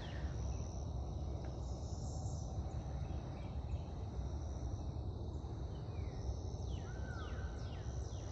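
Outdoor ambience: a steady high insect trill over a low rumble, with a few short bird chirps near the end.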